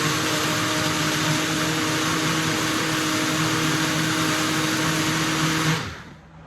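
Electric blender running steadily as it blends soaked rice, cinnamon and water, then switched off abruptly near the end.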